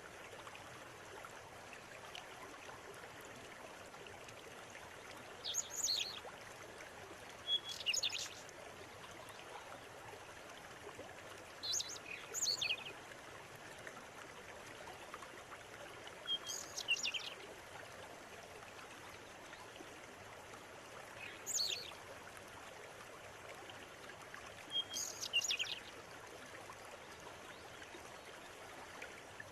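Steady rush of a flowing river, with a bird calling in short high phrases every few seconds, about seven times.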